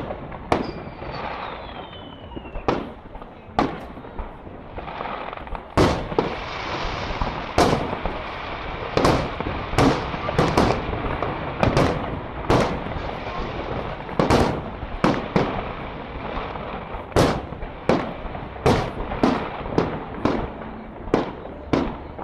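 Fireworks display: a steady run of sharp aerial shell bangs, about one to two a second, coming thicker from about six seconds in, with a whistle falling in pitch near the start and a crackling hiss between the bangs.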